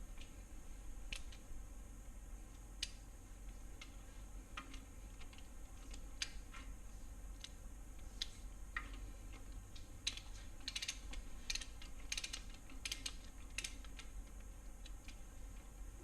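Light metallic clicks from a ratcheting wrench on the LS block's main-cap fasteners, scattered at first and then coming in quick runs about ten seconds in, as the fasteners are run down in their tightening sequence.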